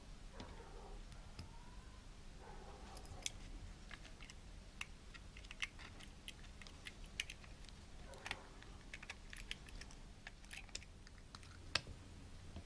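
Faint, irregular small clicks and taps of tiny plastic and metal parts being handled while a GoPro Hero 4 Silver is taken apart, over a low steady hum.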